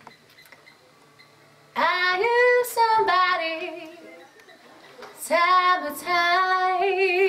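A woman singing unaccompanied: two slow, drawn-out phrases starting about two seconds in, the second ending on a held note with vibrato.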